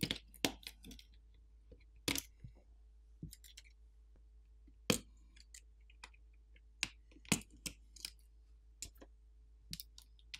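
Irregular sharp clicks and light taps of a plastic pry pick working flex-cable connectors loose inside an opened smartphone, with the cable being lifted out.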